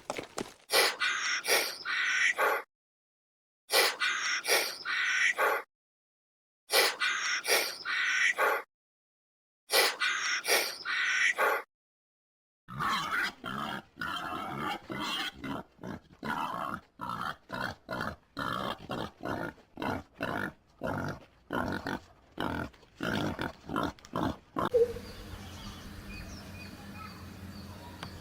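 Animal calls: four matching bursts of about two seconds each, cut apart by dead silence, then a long run of rapid short calls. Near the end the calls stop and faint high chirps of birds are heard over a steady background.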